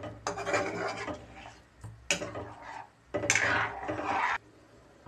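Steel ladle scraping round the bottom of a metal kadai, stirring a thin curry gravy that has just had water added: three strokes, each about a second long.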